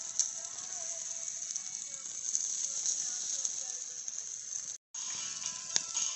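Chicken and sausages sizzling on a grill grate over a wood campfire, a steady hiss with small crackles and pops from the burning wood. The sound cuts out for a moment about two-thirds through, then a sharp pop.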